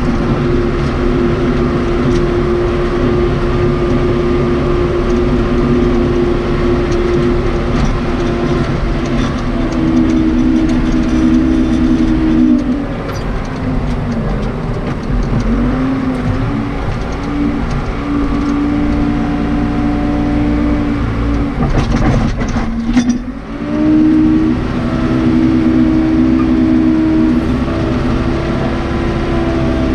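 Case 580 Super K backhoe's Cummins 4BT four-cylinder diesel working under load while pushing snow, its pitch sagging and recovering a few times. A brief clatter of knocks about two-thirds of the way through.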